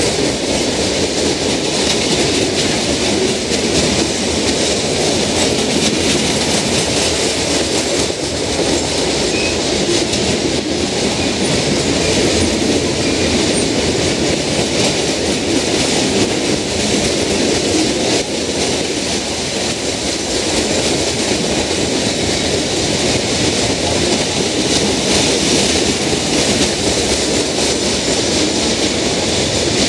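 Lake State Railway freight train's hopper cars rolling past, a steady loud clatter and rumble of steel wheels on the rails.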